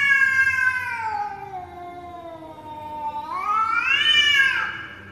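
Two cats caterwauling in an aggressive face-off: a long drawn-out yowl that slides slowly down in pitch, then a second loud yowl that rises and falls near the end.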